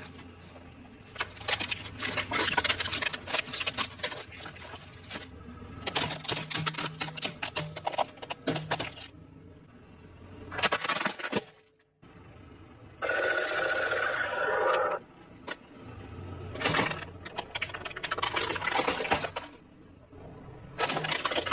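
Hard plastic toys cracking and crunching under a car tyre, in several separate bursts of dense snapping. Near the middle, a steady pitched sound lasts about two seconds.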